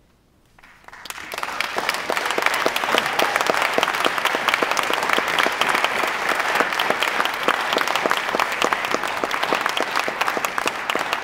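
Audience applauding: after a moment of near silence, clapping builds within about a second into steady, dense applause.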